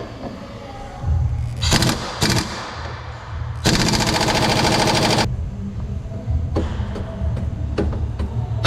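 Impact wrench hammering on a suspension bolt: two short bursts about two seconds in, then a longer run of about a second and a half.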